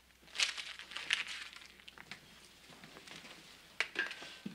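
Paper crumpling and rustling in irregular crackles, the loudest about half a second and a second in, with fainter ones after and another pair near the end.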